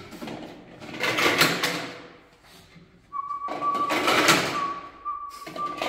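Large plastic rings of a giant Connect 4 game dropped into the frame, clattering down the slots twice: once about a second in, and again for a longer stretch from about three seconds in.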